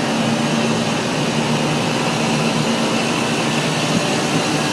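McQuay rooftop air-conditioning unit running steadily: a constant whoosh of condenser fans with a low hum from the compressors, plus a faint high steady tone.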